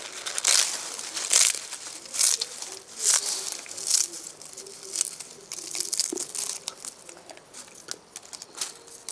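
A crisp fried jackfruit papad (halasinakayi happala) being crushed by hand into small pieces, crunching and crackling in irregular bursts about once a second.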